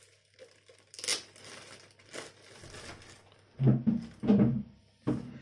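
A cardboard toy box being opened and its packaging handled: rustling and crinkling, with a sharp scrape about a second in and louder handling of the box in the second half.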